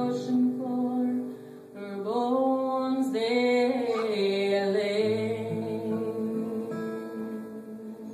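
A woman singing a Celtic-style song to her own strummed acoustic guitar. In the second half she holds a long note over a ringing guitar chord that slowly fades.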